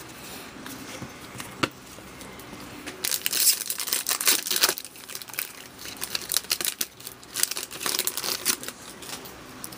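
Sports trading cards being handled and flipped through by hand, with crinkling of a foil pack wrapper. The rustling and flicking come in two busy stretches, about three to five seconds in and again from six to nearly nine seconds in.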